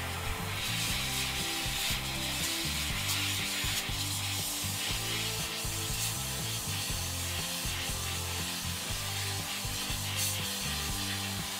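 Instrumental background music with a bass line stepping from note to note, over a steady hiss.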